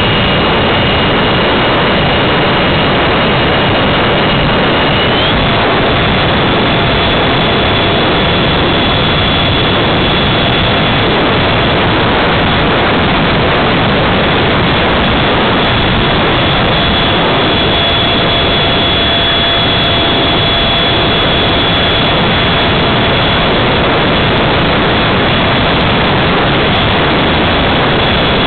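Electric ducted fan of a Habu RC jet running at high speed, heard from a camera on the airframe: a steady high whine over loud rushing air. The whine steps up slightly in pitch about five seconds in, as the throttle is opened a little.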